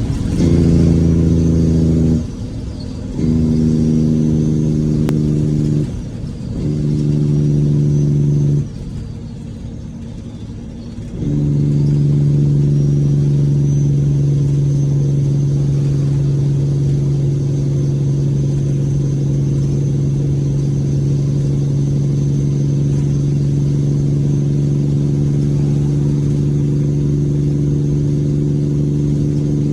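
Caterpillar C12 inline-six diesel truck engine with its Jake (compression-release) brake on: a loud, steady pitched engine note that cuts out and comes back three times in the first nine seconds. It then drops away for about two seconds and comes back on, holding steady.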